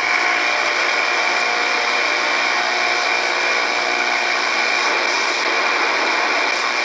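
Shortwave static from an Icom IC-R8500 communications receiver in AM mode: a steady hiss of band noise between stations as the dial is tuned across the lower edge of the 49 metre band. The hiss comes up sharply right at the start.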